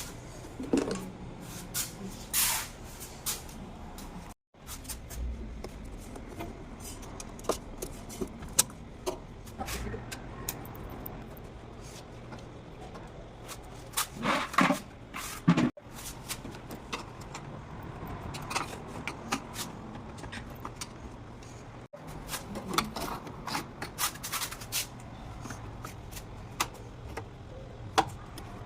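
Scattered clicks, knocks and clatter of things being handled over a low steady hum, with a few short scraping or hissing bursts; the sound cuts out briefly three times.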